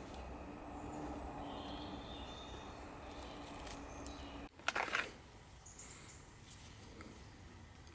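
Quiet woodland ambience with faint bird chirps while leather-gloved hands work at spiky chestnut burrs. About four and a half seconds in, the sound cuts off abruptly and a brief, loud rustle close to the microphone follows.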